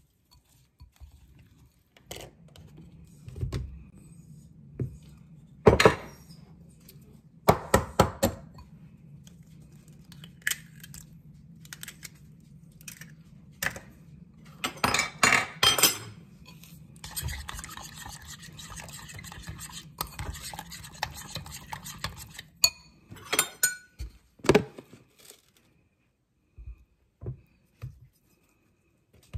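A metal spoon and glass clinking and knocking against a glass mixing bowl while a thick batter is stirred and ingredients are added, with several sharp clinks. An even hiss runs for about five seconds past the middle, under a low steady hum.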